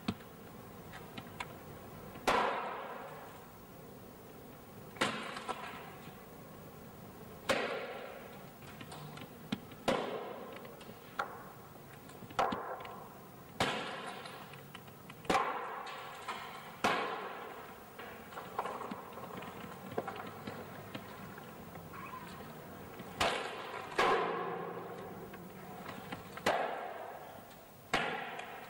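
A hammer striking metal again and again, one clang every one to three seconds, each ringing and fading before the next.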